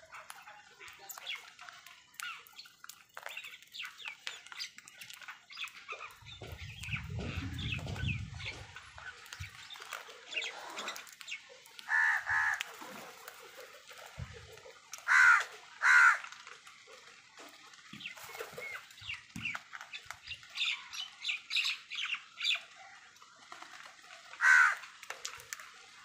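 House crows cawing while feeding, with four loud harsh caws and many short clicks and softer calls between them. A low rumble runs for a few seconds about a quarter of the way in.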